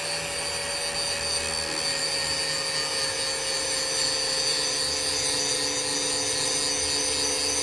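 Handheld angle grinder with a grinding disc running against a steel plate, grinding off mill scale. A steady whine with a grinding hiss, its pitch sinking slightly over the stretch.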